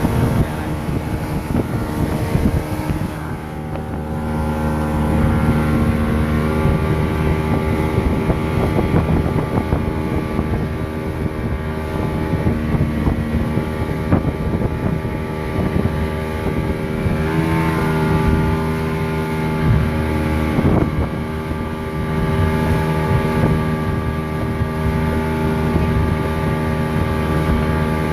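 Motorboat engine running steadily under way, with wind buffeting the microphone; the engine note dips and recovers briefly about two thirds of the way through.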